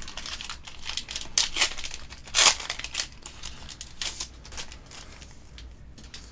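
A foil Pokémon booster pack wrapper being torn open and crinkled by hand: a run of irregular crackles and rips, the loudest tear about two and a half seconds in, thinning out after about four and a half seconds.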